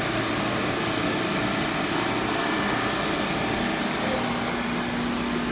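Refrigerant recovery machine running steadily, its compressor pulling refrigerant out of the air-conditioning unit toward zero pressure; a steady hum tone joins about four seconds in.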